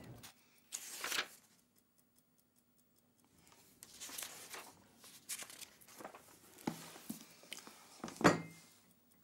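Paper rustling as the pages of a book are turned, with scattered small handling sounds and one louder, sharper thump a little after eight seconds.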